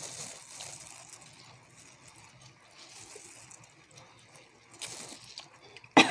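Soft eating sounds of chicken wings being bitten and chewed, with a few louder noisy bursts about five seconds in and a sharp click at the very end.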